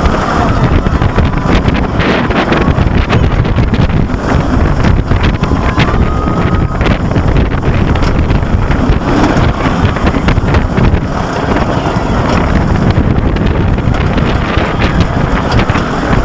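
Wind blasting over the microphone of head-worn camera sunglasses during a ride on Silver Bullet, a Bolliger & Mabillard inverted roller coaster, mixed with the rumble of the train on its track.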